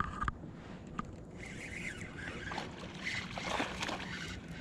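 Spinning fishing reel being cranked to bring in a hooked trout, in two stretches of about a second each, after a few sharp clicks, over a low steady hum.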